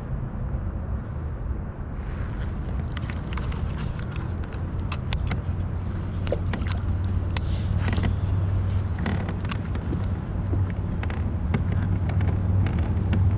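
A steady low rumble that slowly grows louder. From about two seconds in it carries many irregular sharp clicks and ticks.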